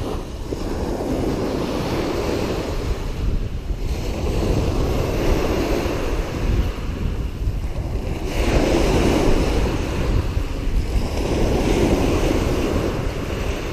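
Wind gusting over the microphone on top of the wash of small waves on the shore, a steady rushing noise with a deep rumble that swells louder in gusts a few times.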